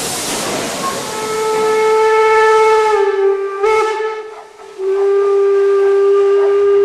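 Steam locomotive whistle blowing two long blasts, the first starting about a second in and sagging slightly in pitch, a short break, then a second long blast. Loud steam hiss is heard before the first blast.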